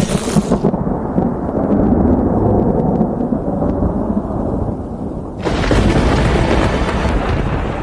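Thunder rolling in a long low rumble, with a fresh, louder peal about five and a half seconds in.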